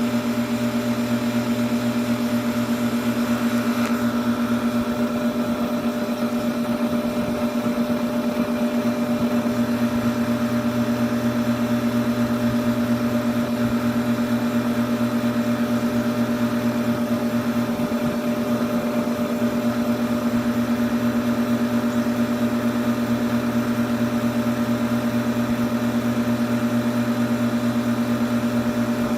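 Air-conditioning compressor running with a steady hum.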